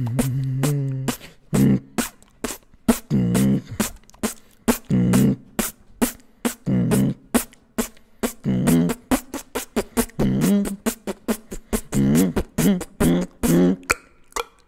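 Human beatboxing, freestyle: quick sharp mouth-made clicks and snare-like hits over low pitched bass notes, in a steady repeating groove.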